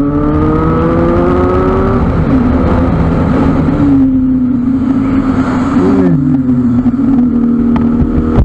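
Motorcycle engine pulling hard under acceleration, its pitch climbing for the first two seconds. It drops at an upshift, then the engine runs steadily at speed with wind noise on the microphone.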